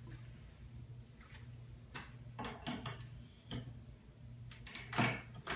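Light clicks and knocks of a handheld shower head and its fittings being handled, a handful of separate taps with the loudest near the end, over a low steady hum.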